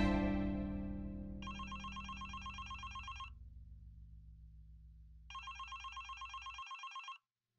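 A telephone ringing: two bursts of a rapid trilling ring, each about two seconds long and two seconds apart, over a low held music chord that fades away. Everything cuts off abruptly near the end.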